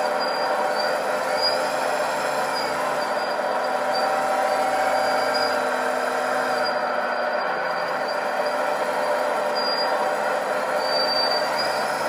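RC model Liebherr 926 Compact hydraulic excavator running: a steady mechanical drone, with short high squeaks now and then.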